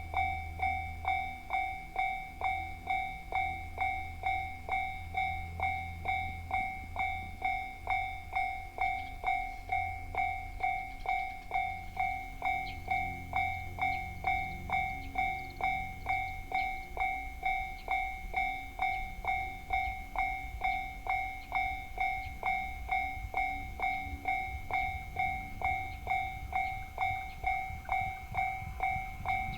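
Japanese level-crossing warning bell ringing steadily at about two strikes a second, over the low rumble of a train running past on the rails.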